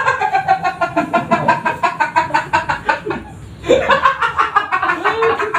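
Men laughing: a quick run of ha-ha pulses for about three seconds, then, after a short break, more laughter mixed with a few words.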